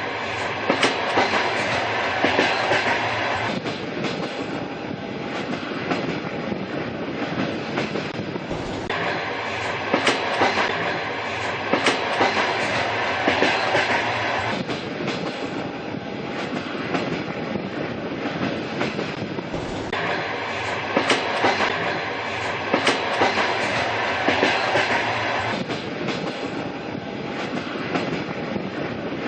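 Train running along the track with a steady rumble, its wheels clacking over the rail joints in repeated clickety-clack groups.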